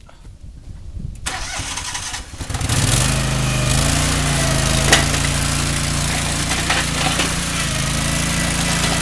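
Toro Dingo compact utility loader's engine starting up and then running steadily, with a single metallic clank about five seconds in.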